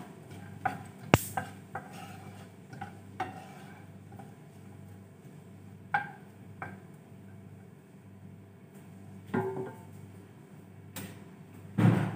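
Wooden spoon stirring sliced onion and leek in a nonstick frying pan, with scattered light knocks and scrapes against the pan; the oil is not yet hot, so there is no sizzle. Near the end the spoon is set down on the gas stovetop with a louder clatter.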